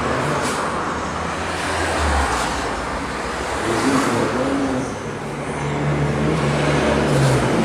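A car engine running nearby: a steady low hum under a broad noisy rush, growing a little louder in the last couple of seconds.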